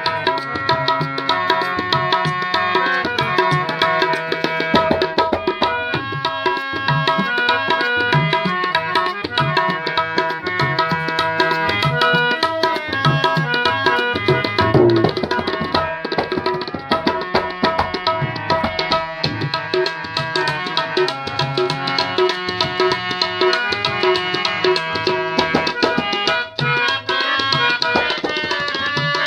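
Tabla played with both hands, a dense stream of strokes on the treble and bass drums, accompanying a harmonium playing a melody of held notes that change every second or so.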